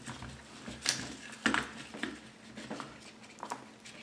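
Webbing rifle sling being threaded through an AR-15's buttstock sling slot: rustling of the strap, with a few light knocks and clicks against the stock, the sharpest about a second and a half in.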